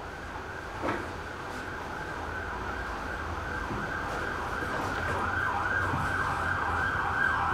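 Emergency vehicle siren sweeping up and down about twice a second, growing steadily louder, with a brief knock about a second in.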